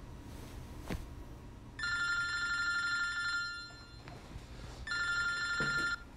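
Telephone ringing twice: two rings of about a second and a half each, a steady chord of high tones, with a pause between them.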